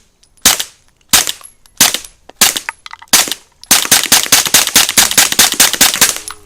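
Suppressed 9mm subsonic shots from a B&T TP9 fitted with a B&T suppressor. Five single shots come at a steady pace, then a fast string of shots starts a little under four seconds in and runs for over two seconds.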